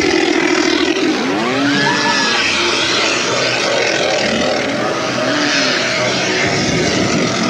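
A chainsaw prop's engine running and revving, its pitch rising and falling a few times over a dense, noisy background.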